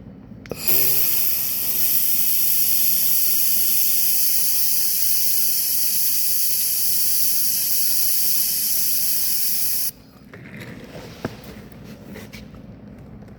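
Handheld laser welder running a weld on aluminium: a steady, loud hiss that starts about half a second in, holds for about nine seconds, and cuts off suddenly. Faint handling noise and a click follow.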